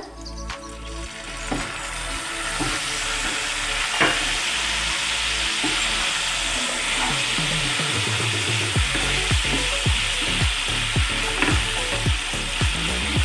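Lemon juice sizzling as it hits a hot pan of fried ginger, the sizzle building over the first couple of seconds and then holding steady. In the second half a wooden spatula stirring the sauce knocks and scrapes against the pan many times.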